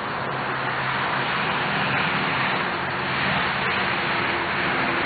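Car driving, heard from inside the cabin: a steady mix of tyre and road noise with a low engine hum.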